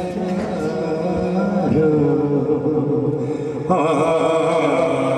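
Naat chanted melodically in long held and gliding notes over a steady background drone; the sound grows fuller and louder near the end.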